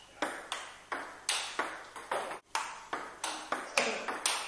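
Table tennis rally: the celluloid ball clicking off a carbon-bladed bat and the table in turn, about three sharp hits a second, each with a short ring in a small room.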